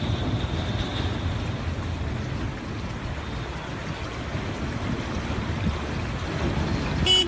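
Swollen floodwater rushing past in a steady, even roar of noise.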